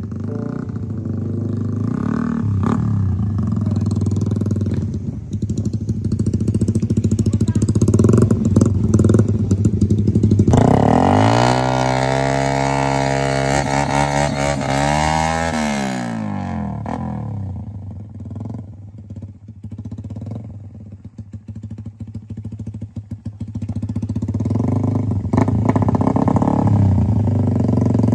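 Modified drag-racing underbone motorcycle engine with an aftermarket exhaust idling, then revved up sharply about ten seconds in, held high for a few seconds and let fall back. It settles to an uneven idle and picks up again near the end.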